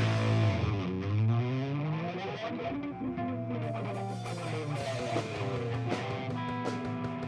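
Live rock band's distorted electric guitar run through effects, its notes sliding down in pitch and back up over the first few seconds, then settling into held notes with short sharp taps toward the end.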